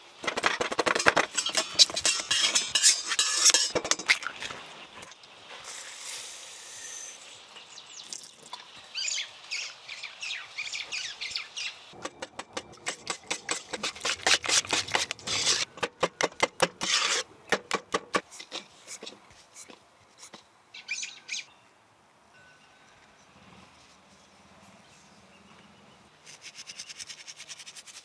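A wire whisk beating mashed banana batter in a bowl, a long run of quick rhythmic clicks as the wires strike the bowl, with other kitchen scrapes and clinks around it.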